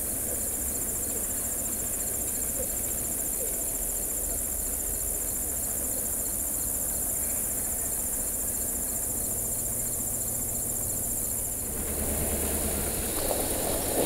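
A chorus of field insects, crickets, in a steady, high-pitched, rapidly pulsing trill over a low vehicle engine rumble. About twelve seconds in, the rumble and road noise grow louder.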